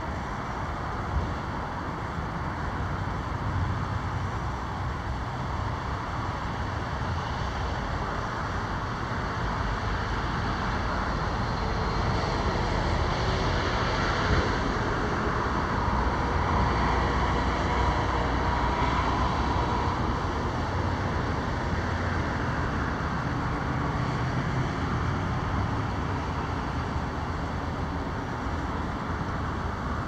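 Steady road traffic rumble and tyre hiss, swelling for several seconds in the middle as a vehicle passes closer, then easing back.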